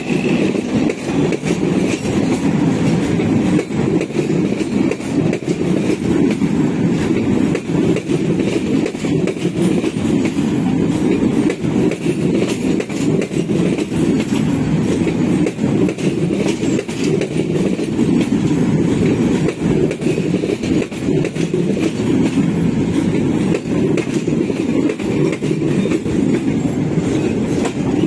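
Passenger train coaches rolling past close by, wheels clattering over the rail joints in a steady rumble. The train is running at restricted speed over freshly repaired track.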